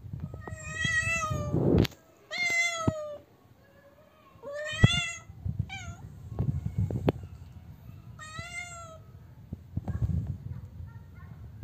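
Domestic cat giving loud, drawn-out meows, four long calls and one short one, each bending slightly up then down: a cat calling for a mate. A few sharp taps are heard between the calls.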